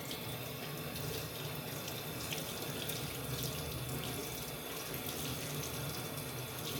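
Kitchen tap running steadily into the sink as very dirty mushrooms are rinsed under it.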